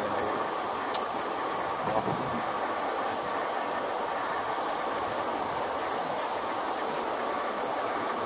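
Steady background hiss, with one sharp click about a second in and a soft knock about a second later.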